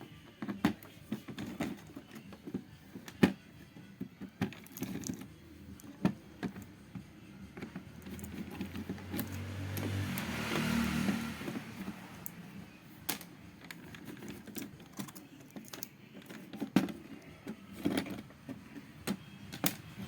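Scattered clicks, taps and knocks of screws, a screwdriver and TV parts being handled as an LED TV's motherboard is unscrewed and taken out, with a brief swelling noise and low hum about halfway through.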